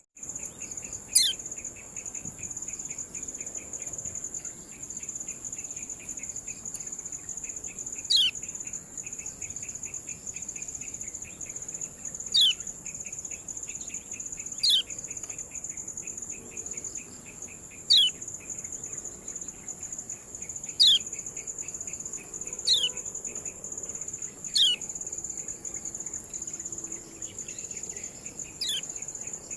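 Kecial kuning giving single sharp 'ciak' calls, each a quick downward slide in pitch, repeated about every two to four seconds, about nine times. Under them runs a steady high, cricket-like insect trill.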